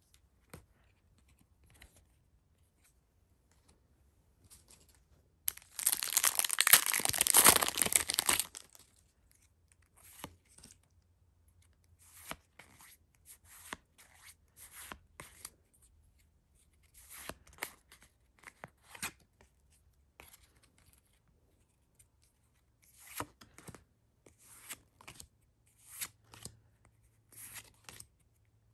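A Pokémon TCG booster pack's foil wrapper torn open, loud and lasting about three seconds, starting about five seconds in. Then soft swishes of trading cards slid one at a time off a stack as they are looked through.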